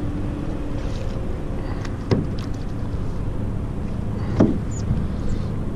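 Two sharp knocks about two seconds apart as a push pole is handled on a paddleboard, over a steady low wind rumble on the microphone.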